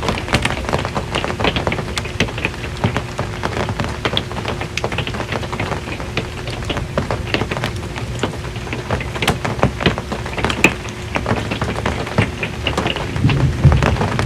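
Rain drumming on an RV's metal roof, a dense patter of individual drops ticking sharply on the sheet metal. A low rumble of thunder builds near the end.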